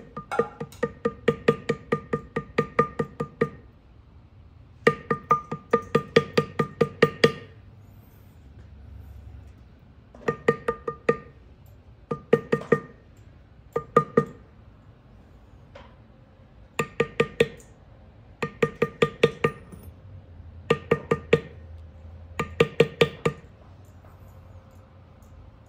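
Mallet tapping a leather-tooling beveler in quick runs of about five or six strikes a second, each strike with a short pitched ring, with brief pauses between runs. This is the beveling stage of hand-tooling leather: pushing the leather down along the edges of the carved design.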